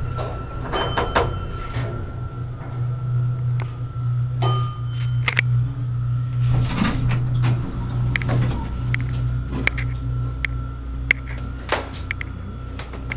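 Small Otis traction elevator in service: a steady low hum throughout. An electronic chime dings about a second in and again about four and a half seconds in, followed by scattered clicks and knocks from the doors and buttons.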